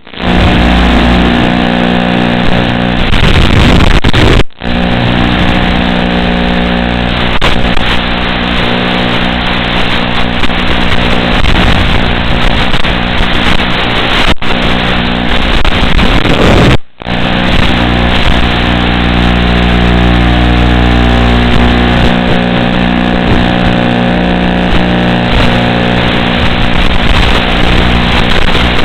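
FPV quadcopter's brushless motors whining in flight, heard through the craft's onboard microphone as a dense buzz of several pitches that shift a little with throttle. The sound cuts out briefly twice, once about four seconds in and again just past halfway.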